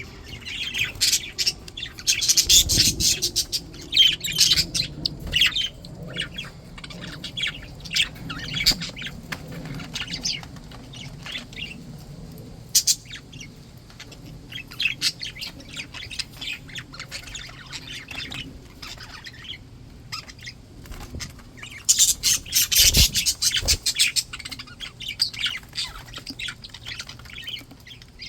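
Budgerigars chirping, chattering and squawking in quick high calls, busiest at first and again about three quarters through, with sparser chirps in between.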